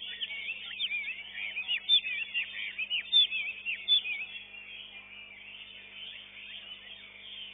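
Chinese hwamei singing a rapid run of varied, looping whistled notes. Around four seconds in the song turns softer and more even.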